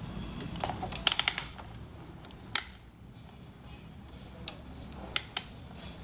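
A quick run of four or five sharp mechanical clicks about a second in, one more click a little later, and two close together near the end, as an amplifier and multimeter probes are handled on the bench.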